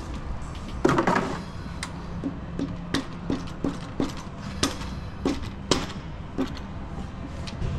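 Rubber mallet tapping repeatedly on a Honda K24A cylinder head, sharp knocks about three a second, to loosen parts during teardown. A louder clatter comes about a second in.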